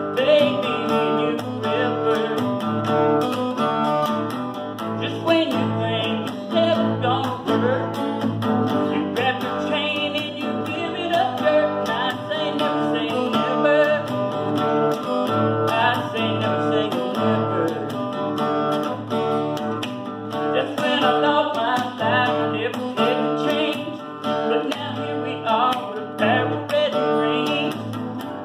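Acoustic guitar strumming steady chords while a second guitar plays a picked lead line over it: an instrumental break in the song.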